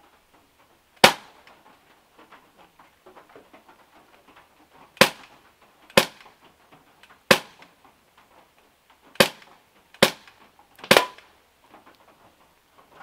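Semi-automatic BB pistol fired seven times, sharp single shots. After the first there is a gap of about four seconds, then six more come about a second apart.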